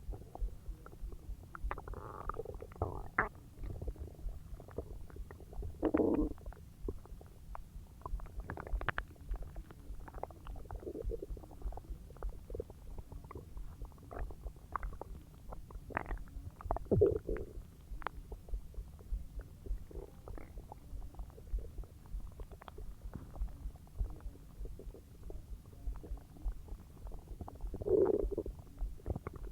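Human stomach and intestines gurgling and rumbling as a huge meal digests: a constant patter of small pops and clicks, with louder gurgles a couple of seconds in, around six seconds, around seventeen seconds and near the end.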